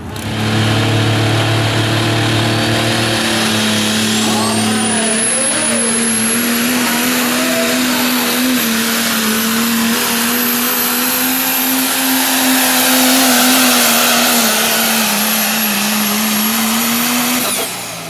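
Diesel pickup truck pulling a sled at full throttle, the engine running hard and steady with a high whistle that climbs over the first few seconds and then holds. The sound drops off near the end.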